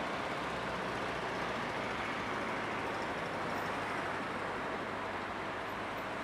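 A tram running along street track toward the listener, a steady rolling noise mixed with the hum of city traffic.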